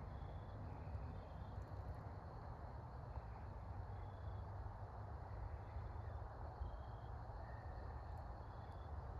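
Quiet outdoor ambience: a steady low rumble with several short, thin high bird chirps scattered through it.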